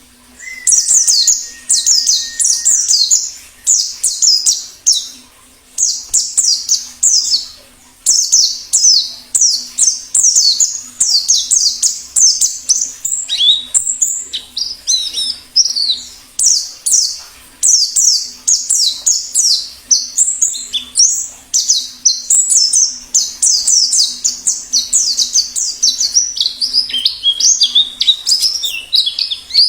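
Wild forest-type white-eye (pleci ngalas) singing: rapid, very high, thin twittering phrases of quick sweeping notes, one after another with only short pauses. A faint steady low hum lies underneath.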